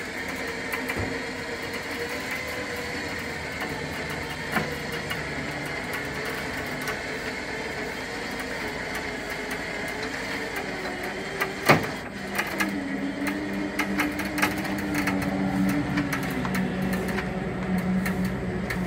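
Electric winch motor running steadily as it draws the car up onto a flatbed trailer, with scattered creaks and clicks. About twelve seconds in there is one sharp clank, after which the motor's tone drops lower and it gets louder.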